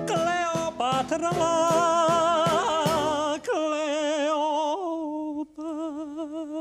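A man singing a dramatic ballad with a wide vibrato over instrumental accompaniment. About three and a half seconds in, the accompaniment drops away and he holds one long wavering note alone.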